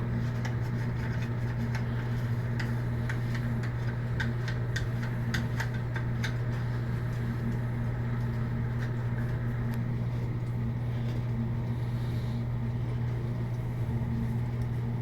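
Light plastic clicks and ticks, many over the first half and fewer later, as the plastic nut of a Fluidmaster flush valve is hand-threaded onto its shank, under a steady low hum.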